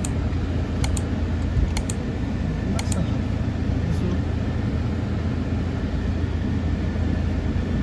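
Steady low rumble of outdoor background noise, with three quick double clicks about a second apart in the first three seconds.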